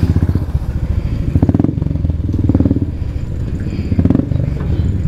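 Royal Enfield Bullet motorcycle's single-cylinder engine running with an even thumping beat that rises and falls in loudness.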